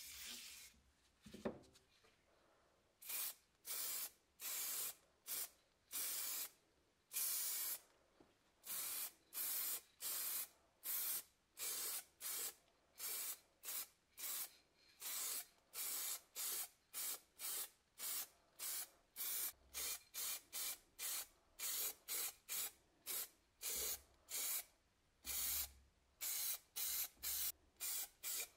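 A single knock about a second and a half in, then an aerosol spray-paint can hissing in short repeated bursts, one to two a second, as paint is sprayed into a steel helmet shell.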